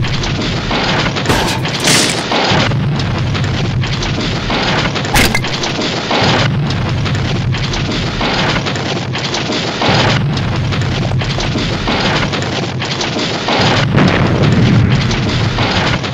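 Ground-tremor rumble sound effect: a loud, continuous deep rumble with irregular cracks and knocks through it, beginning to fade near the end.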